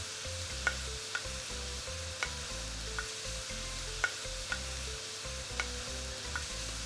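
Chard, spinach and chervil sizzling as they wilt down in a stainless-steel pan, stirred with a wooden spoon that knocks against the pan about once a second.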